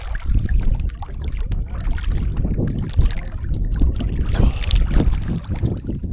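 Wind buffeting the microphone: a loud, gusty low rumble that swells and fades irregularly, with a brighter rushing gust about four seconds in.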